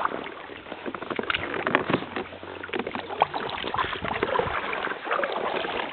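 Paddling in a Gumotex Twist 2 inflatable kayak: irregular paddle splashes and knocks, with water and rubbing noise close by.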